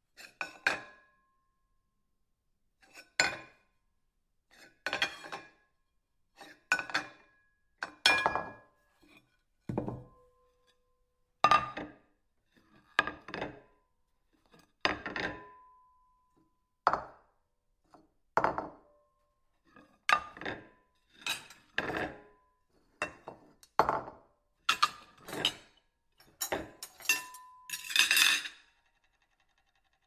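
Ceramic plate clinking, a series of separate sharp knocks every second or two, several leaving a short ringing tone. Near the end the strikes crowd together into a longer rattling clatter.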